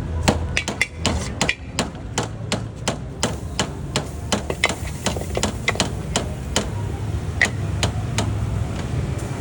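A street food vendor's cooking utensil striking repeatedly and fast, several sharp, irregular hits a second, over a low steady rumble.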